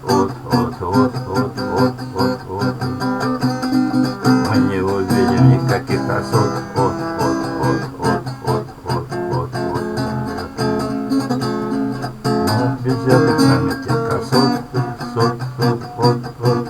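Acoustic guitar strumming a song's accompaniment in an even rhythm, with no singing.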